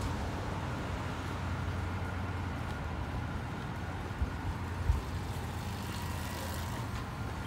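City street ambience: a steady low rumble of road traffic. Two short knocks sound about four and five seconds in.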